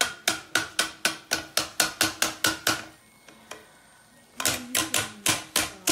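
Wire potato masher knocking against a metal saucepan as black beans are mashed, about four sharp metallic knocks a second, each ringing faintly. The knocking stops for about a second and a half in the middle, then starts again.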